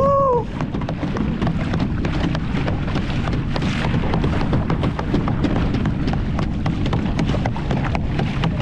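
Wind buffeting the microphone and water rushing and splashing along the hull of a moving boat, a steady low rumble with many small splashes over it.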